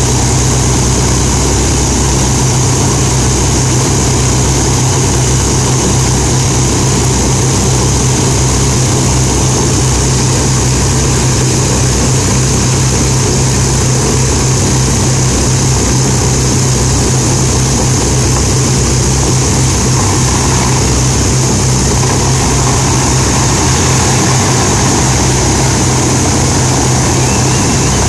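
A Lancaster bomber's Rolls-Royce Merlin V12 piston engines running steadily with their propellers turning: a loud, even, deep drone that holds at one pitch and level, with no run-up or throttle change.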